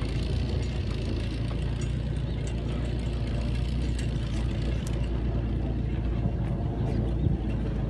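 Farm tractor engine running steadily at an even, low pitch while towing a vehicle out of a field.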